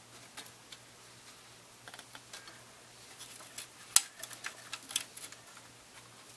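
Scattered light clicks and taps of metal and polymer parts as a tactical stock is handled and fitted onto a 20mm big-bore air rifle, with one sharper click about four seconds in.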